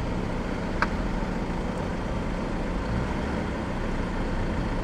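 Steady low rumble of a car's engine and tyres heard from inside the cabin while creeping forward in a queue of traffic. A single short click comes about a second in.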